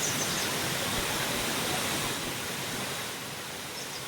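Steady rushing noise, a little softer from about three seconds in.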